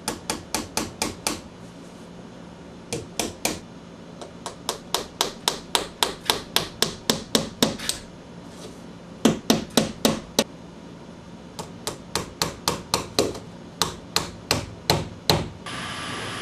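Hammer driving nails through crown molding into the wall: runs of quick, sharp strikes, about four or five a second, in several bursts with short pauses between.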